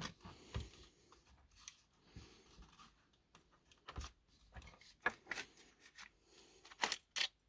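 Faint plastic clicks and rustles from an Accurascale Class 66 model locomotive's body shell being worked off its chassis by hand. A few sharper clicks come about four seconds in and again near the end.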